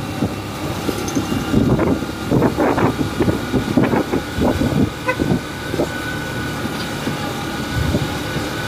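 Engine of a Honda TMX Supremo motorcycle running as the bike rides along, with rough, irregular gusts of wind buffeting the microphone, heaviest in the first half.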